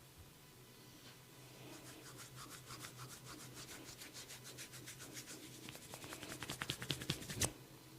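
Barber's hands rubbing the scalp and hair in quick, even strokes, about six a second, growing louder. A single sharp click comes near the end.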